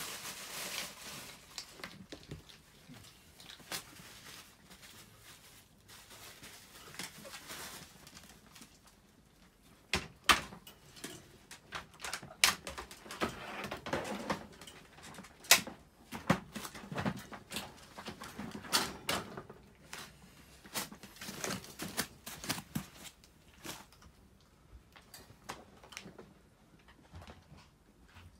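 Irregular clicks, knocks and rustling from wire dog crates being handled over a plastic tarp floor, with a soft crinkling haze at first and sharp clicks and clanks crowding together in the middle.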